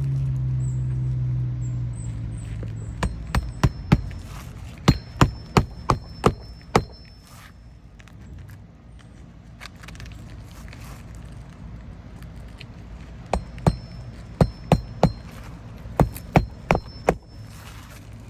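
Hammer striking roofing nails in a shingle: two runs of sharp blows, eight to ten each, each blow with a short metallic ring. A low engine hum fades out in the first couple of seconds.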